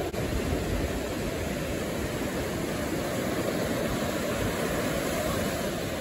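Ocean surf washing and breaking in the shallows, a steady rush of water with some wind on the microphone.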